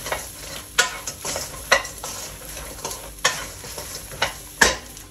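A wooden spatula stirring and tossing battered, fried aubergine pieces in a wok, with a few sharp scrapes and knocks against the pan, the loudest near the end. A light sizzle runs underneath from the pan's leftover heat after the burner is switched off.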